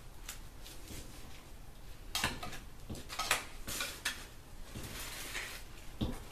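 Metal putty knife scraping old wax off a toilet floor flange, in short, irregular scrapes and clicks.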